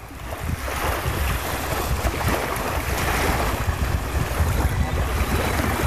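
Wind buffeting the microphone over the wash of surf on a beach: a steady rushing noise with a heavy low rumble, fading in over the first second.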